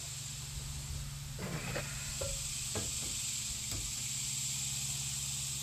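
A few light clicks and clinks from an alternator being handled and set against a mini excavator's engine, over a steady high hiss and a low steady hum.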